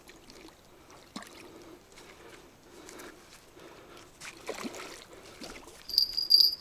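Faint sloshing and splashing of river water as a hooked small wild carp is played at the bank, with a few light knocks. About six seconds in, a short, loud, high steady whine cuts in.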